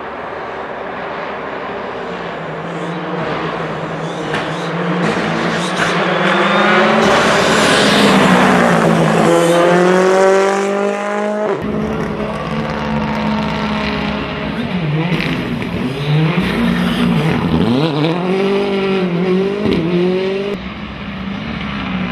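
Ford Fiesta rally car's engine running hard: its note climbs steeply as it accelerates, drops off abruptly about halfway, then falls and rises again several times as the car brakes and powers out of corners.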